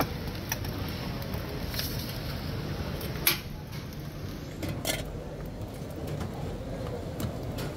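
A few sharp metallic clinks of a spatula on a tawa griddle at a bun kebab stall, over a steady background hiss.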